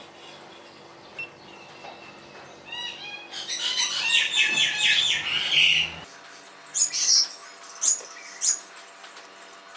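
A bird chirping: a quick run of rising chirps, then a few seconds of dense, rapid chirping. After a sudden change about six seconds in, a few short, sharp high sounds.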